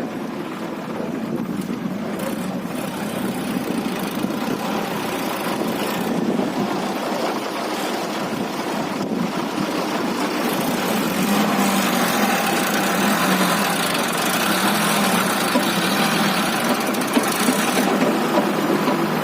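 Diesel engines of a JCB backhoe loader and a Sonalika 745 DI tractor running steadily while mud is loaded. The engine sound grows somewhat louder about halfway through.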